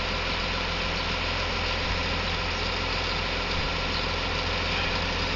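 Backhoe loader's diesel engine running steadily, with no change in speed.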